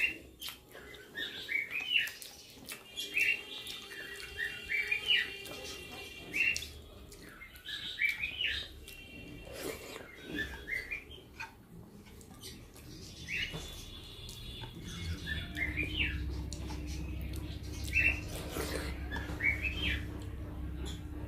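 Small birds chirping: short rising chirps in quick clusters, repeating every second or two. About two-thirds of the way through, a low steady hum comes in underneath.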